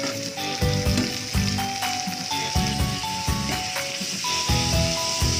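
Onion, cauliflower and carrot pieces sizzling steadily as they fry in oil in a pan and are stirred, under background music with a simple melody and a steady beat.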